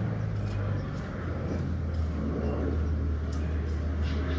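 An engine running steadily with a low hum, its pitch shifting slightly about a second in.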